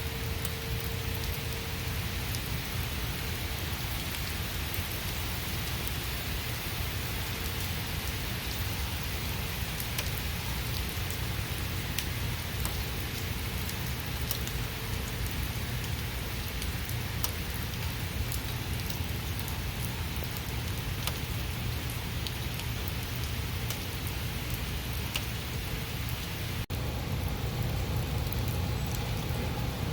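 Steady rain falling, with many separate drops ticking sharply over the constant hiss. About 27 s in it cuts out for an instant and comes back slightly louder.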